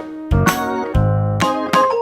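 Upbeat children's background music on keyboard or electric piano, with a steady beat.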